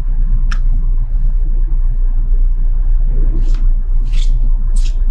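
Steady low hum of a powered-up Voyager XP CNC stone saw, with several short hissing sounds about half a second in and again near the end.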